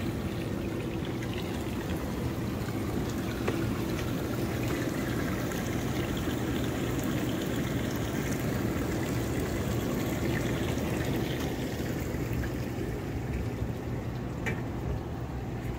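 Hot tub with its jets running: a steady churning and bubbling of aerated water, with a low, even hum beneath it.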